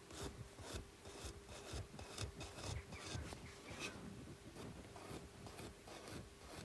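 Faint, irregular scratching and rubbing strokes of a painting tool drawn over the surface of a clay pot as the folk-art decoration is painted on.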